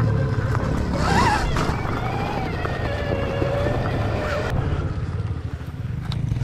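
Stark Varg electric dirt bike's motor whining under throttle, its pitch rising and falling about a second in, then holding steady before stopping about four and a half seconds in. A steady low rumble runs underneath.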